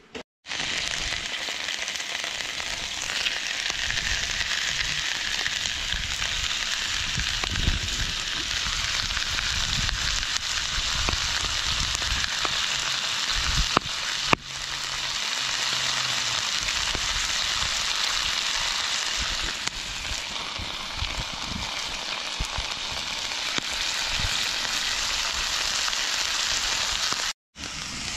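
Pheasant breasts with onions and peppers sizzling in a cast-iron skillet over a wood fire: a steady frying hiss, cut off briefly about halfway through and again near the end.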